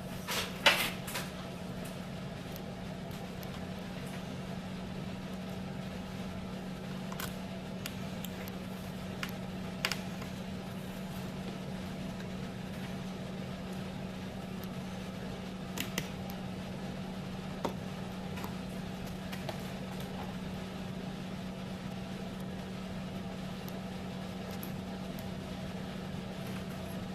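Steady low electrical or fan hum at one pitch, with a few light clicks and taps from handling the replacement screen panel as it is fitted and lined up: a quick cluster about a second in, then single clicks spread through the rest.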